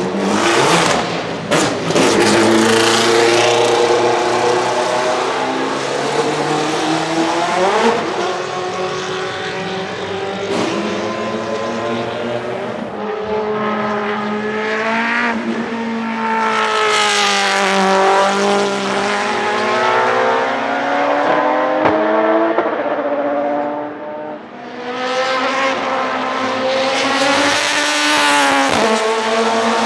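Panoz LMP07 prototype's Mugen 4.0-litre V8 racing engine accelerating hard, its revs climbing and dropping back with each quick upshift. Twice the car passes close, the note swelling and then falling in pitch as it goes by.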